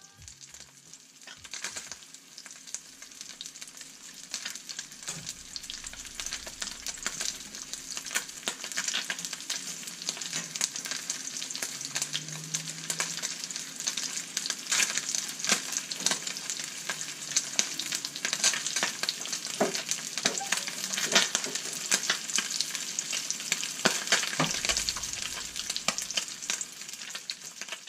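Butter and a whole fish frying in a nonstick pan: a steady crackling sizzle that builds over the first few seconds, with sharp clicks and pops and the scrape of a spatula as the fish is turned.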